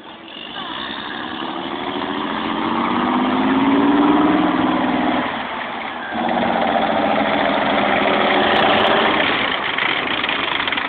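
A military vehicle's engine running. It grows louder over the first few seconds, drops off briefly about five and a half seconds in, then runs loud again.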